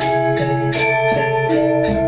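Balinese gong gede gamelan in seven-tone saih pitu tuning playing: bronze metallophone keys are struck in quick succession, and each tone rings on over the next.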